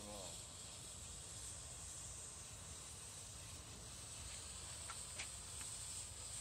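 Colored smoke fireworks hissing faintly and steadily as they pour out smoke, with a few faint ticks about five seconds in.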